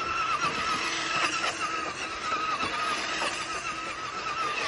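Traxxas Rustler RC truck's electric motor whining steadily as it drives circles in snow, its pitch wavering slightly with the throttle, over a hiss of the tyres churning the snow.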